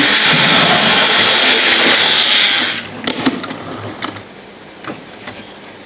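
Model railway A4 locomotive's electric motor whirring loudly, then cutting out about three seconds in, followed by a few faint clicks; the loco is stalling on the track.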